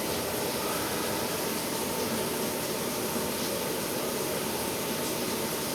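Takagi gas tankless water heater firing with hot water flowing: a steady rushing of burner and fan. It is running without the loud, low-toned harmonic vibration it is prone to.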